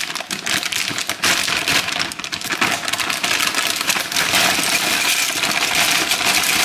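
Plastic potato-chip bag being opened and crinkled, with the chips pouring out and clattering into a bowl: a steady crackle of many small clicks.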